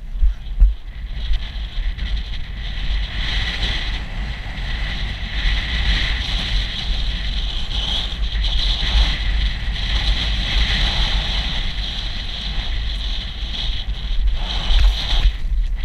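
Wind buffeting the microphone of a camera carried on a galloping horse: a steady rushing hiss over a deep rumble.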